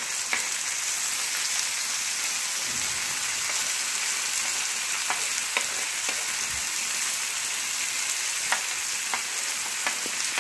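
Onions, green chillies, ginger and garlic frying in oil in a pan: a steady sizzle. Chopped tomatoes are scraped into it from a wooden board with a steel spoon, with light clicks of the spoon on the board and pan about ten times.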